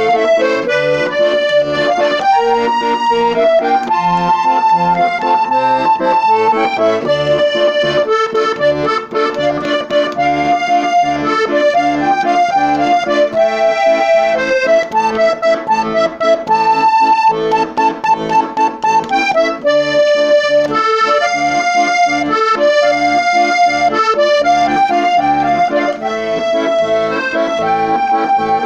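Diatonic accordion in musette tuning playing a waltz: a melody of held notes over left-hand bass notes and chords repeating on a steady beat.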